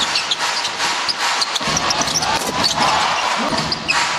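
Basketball game on court: a ball being dribbled on the hardwood floor amid short, high sneaker squeaks and steady arena noise.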